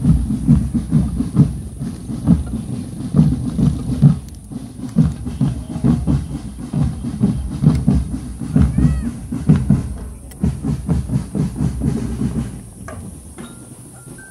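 Marching drum band's drums beating a steady, fast rhythm, the deep drum strokes loudest. Near the end a few high ringing bell notes come in.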